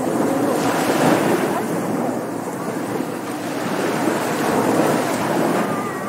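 Ocean surf washing up a beach: a steady rushing of breaking waves that swells and eases.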